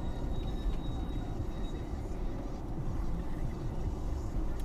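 Steady low road and engine rumble of a car driving at highway speed, heard from inside the cabin.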